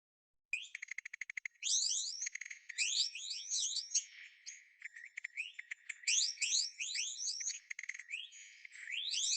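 Bird song: starting about half a second in with a fast stuttering trill, then phrases of rapid, high-pitched rising chirps, with short lulls between the phrases.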